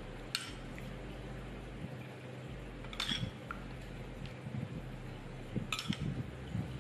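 Spoon clinking against a dish three times, a few seconds apart, as green onion oil is spooned over chicken pieces.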